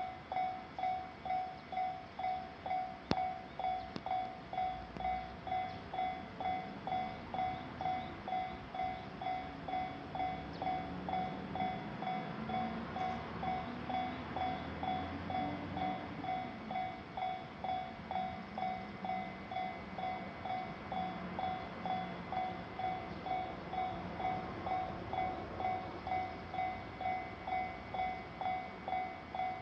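Japanese level crossing's electronic warning bell ringing in a steady pulse, a little under two strokes a second. Through the middle a train passes over the crossing, its rumble and a low hum rising and falling before fading.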